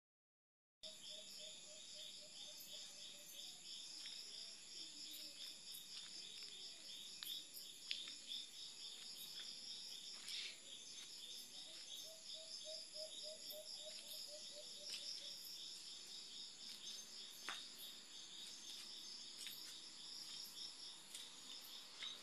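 Crickets chirping in a faint, steady chorus of rapid high pulses. A lower series of quick pulses comes in twice, near the start and in the middle, with a few faint clicks.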